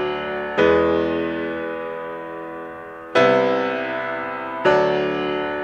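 Background music: slow, sustained keyboard chords, three struck within a few seconds, each ringing and fading out slowly before the next.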